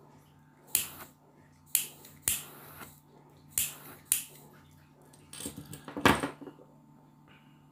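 Mini butane torch's push-button igniter clicking about five times, roughly a second apart, each a sharp snap with a short fading tail, as it is used to heat a glued rod guide loose. Near the end there is a quick clatter of knocks as the torch is put down on the table.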